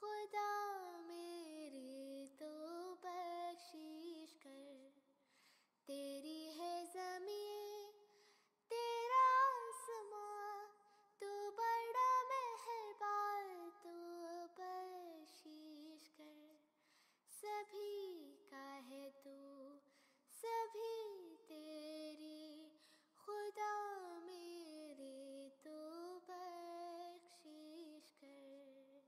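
A single high voice singing a slow, ornamented melody without accompaniment, in phrases separated by short pauses. It stops abruptly at the very end.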